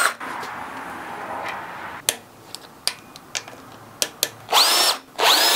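Cordless drill-driver spinning out small bolts in two short bursts near the end, its motor whine rising as it spins up. Before that, a few light metallic clicks and taps of parts being handled.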